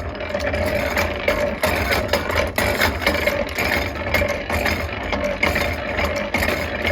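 Hand-cranked blacksmith's post drill turning, its gears and cam-and-lever automatic feed making a steady clatter of small clicks and knocks as the feed advances the quill.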